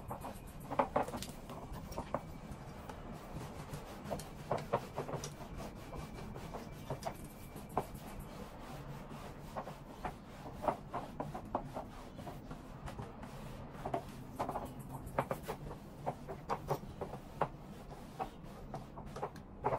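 Clothing and a hanger being handled: fabric rubbing and rustling with many short, irregular clicks and knocks, over a faint steady low hum.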